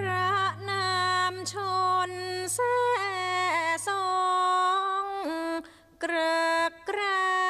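A woman singing a slow Thai classical vocal line, unaccompanied, with long held notes and sliding ornaments and short breath breaks. A low hum dies away about four seconds in.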